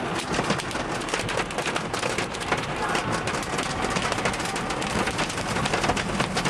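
Hailstones pelting a car's body and windscreen, a dense, continuous clatter of many small sharp impacts over a steady hiss of the storm.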